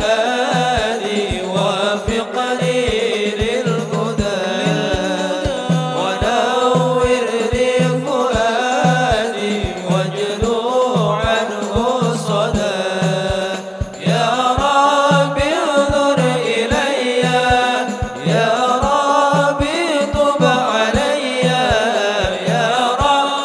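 Men's voices singing sholawat over a hadroh ensemble: hand-struck rebana frame drums and a bass drum keeping a steady, even beat.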